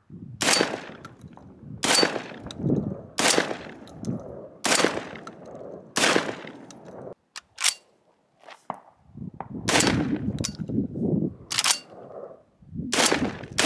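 Typhoon Defense F12 12-gauge gas-operated semi-automatic shotgun firing light birdshot loads in its break-in period. Single shots come about a second and a half apart, each with a short ringing tail. There is a pause with a couple of small clicks about halfway through, then more shots.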